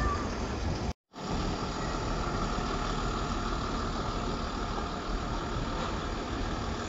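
Engine of a Mercedes-Benz Sprinter fire-rescue van running steadily as the van moves slowly. There is a short gap about a second in.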